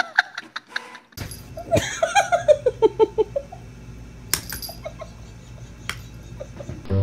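A person laughing in a run of short notes that fall in pitch, over a steady low hum, with a few sharp clicks afterwards.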